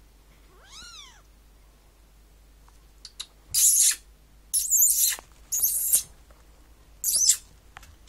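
A kitten gives one short rising-and-falling meow about a second in. Later come four loud, short, harsh bursts of noise with little low end, the loudest sounds here.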